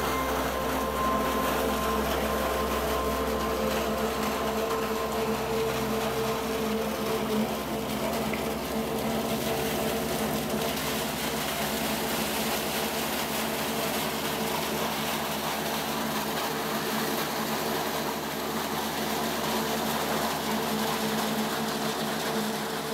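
Steady mechanical hum of the lake freighter ALGORAIL's engines and machinery, close beside the hull, with several steady tones running through it.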